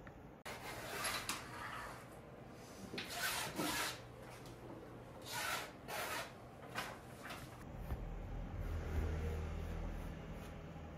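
Pencil sketching on a stretched canvas: a series of short dry scratching strokes, some quick and some longer, then softer scratching over a low steady hum for the last few seconds.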